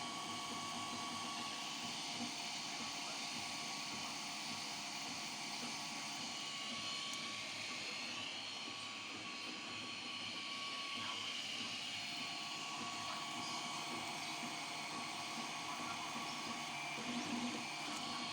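A 3D printer running: a steady whir of its fans and motors, with a whine that wavers up and down in pitch through the middle.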